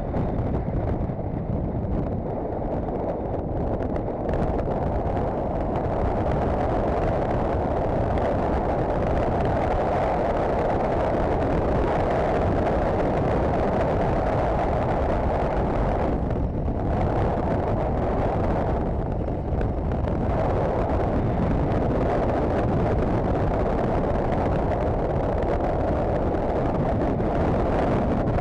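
Honda CBF1000 inline-four motorcycle cruising at steady speed, heard as a constant rush of wind on the microphone mixed with engine and road noise. The sound briefly drops away about sixteen seconds in.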